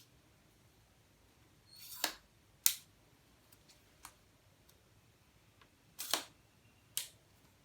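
Plastic tripod leg sections being slid and their clip locks snapped: a short scrape followed by a sharp click, twice, with a few faint ticks between.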